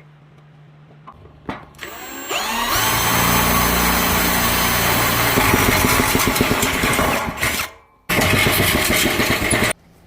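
A small motor, like a power tool's, spins up with a rising whine and runs loud and steady, dies away, then runs again and cuts off suddenly near the end.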